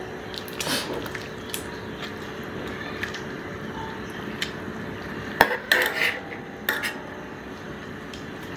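A metal ladle and tongs clink and scrape against a large steel wok as cooked chicken pieces are lifted out of the simmering curry. A few sharp clinks, the loudest about five and a half to seven seconds in, sit over a steady background hiss.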